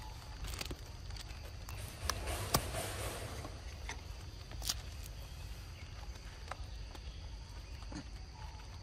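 Outdoor ambience: a low steady rumble with a handful of short, faint clicks and rustles scattered through it.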